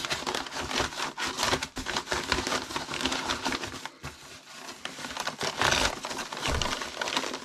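Padded bubble mailer and cardboard crinkling and rustling as a cardboard-wrapped book is slid into the envelope and handled, with many small crackles and taps.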